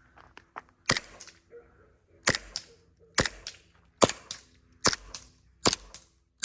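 Vorsk Hi-Capa gas blowback airsoft pistol firing six sharp shots, roughly one a second, each followed a moment later by a lighter click.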